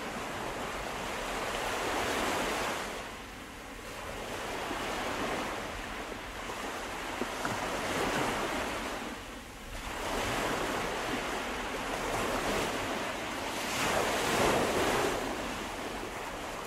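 Surf breaking on a beach: a wash of waves that swells and falls back every few seconds, loudest near the end.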